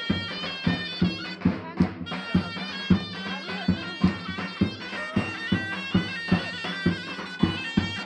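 Live folk dance music: a reed wind instrument plays a sustained, ornamented melody over a large drum struck about twice a second.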